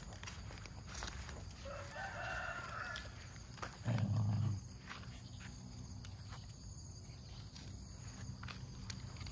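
A rooster crows once, about two seconds in, over scattered footstep clicks on a gravel dirt track. About four seconds in comes a short, low thud, the loudest sound.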